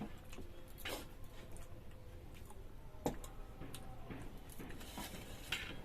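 Faint scattered clicks and light taps, a few seconds apart, from plates and food being handled at a table, over a low steady room background.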